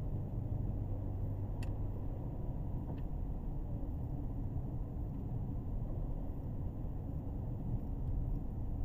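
Steady low road and engine noise inside a 2017 Kia Sorento's cabin while driving, with two faint clicks about a second and a half apart.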